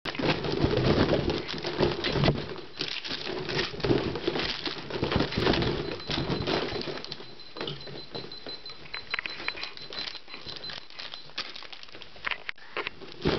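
A bunch of inflated rubber balloons bumping and rubbing against each other as they are carried around, many soft knocks with squeaky rubber rubs, busier in the first half.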